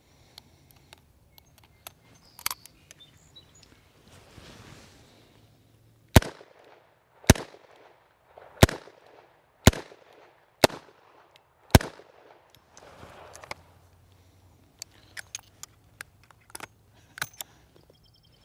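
SAR 38 .357 Magnum double-action revolver firing six shots, about a second apart. Light clicks of the gun being handled come before and after the shots.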